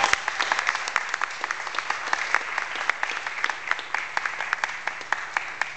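Audience applauding for a prize-winner, the clapping thinning out and stopping near the end.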